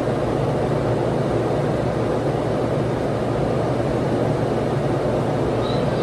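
Steady rushing hum of an indoor shooting range's ventilation fans, even and unbroken.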